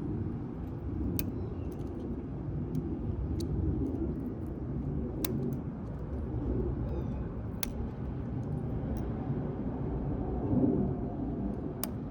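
Lishi pick working the pins of a Schlage lock: a scattered handful of small, sharp metallic clicks at irregular intervals, over a steady low outdoor rumble.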